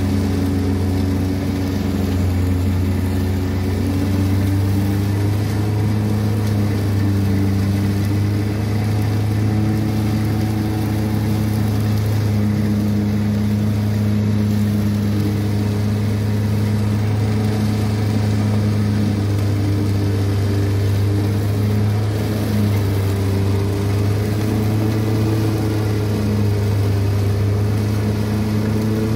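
Tractor engine and a tractor-drawn Vinmax VM1300 forage harvester running steadily under load, cutting elephant grass, chopping it for silage and blowing it out through the spout. A loud, even drone with a low hum that holds steady throughout.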